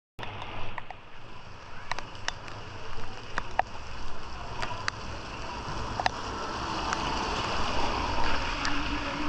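Rain and running floodwater: a steady hiss of water with scattered sharp ticks of drops and a low rumble underneath. It starts abruptly just after the beginning.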